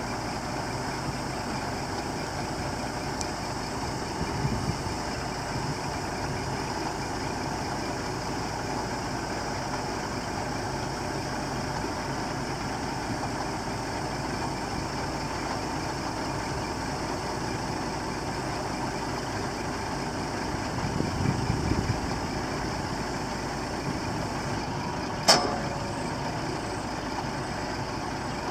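Scania R480 truck engine running steadily while the Multilift hooklift arm is worked by its hydraulics. About three quarters of the way through, a single sharp metallic clank rings out.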